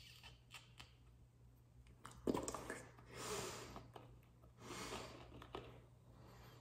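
Plastic screw cap being twisted off a soda bottle: a few small clicks, then a sharp snap about two seconds in, followed by short hissing bursts.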